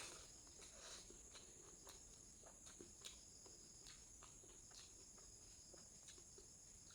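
A person eating quietly: faint scattered clicks and soft chewing and mouth sounds, over a steady high-pitched hiss.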